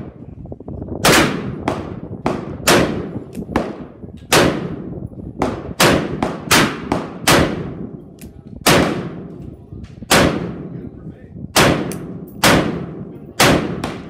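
Gunshots from several guns at a shooting range: about twenty sharp reports, each with an echoing tail, some in quick runs a third of a second apart. Among them fires a .45 Colt Uberti 1873 Cattleman single-action revolver that is misfiring on some rounds.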